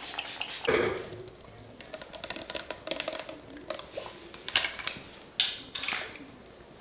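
Kitchen utensils and dishes being handled: irregular light taps and clicks, with a louder clatter about a second in.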